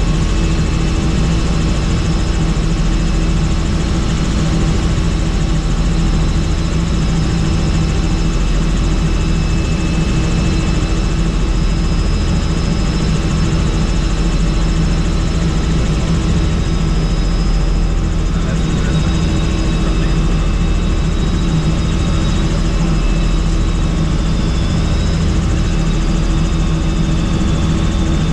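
Helicopter in flight, heard from on board: a steady, loud drone of turbine and rotor noise with a low, regular throb from the blades.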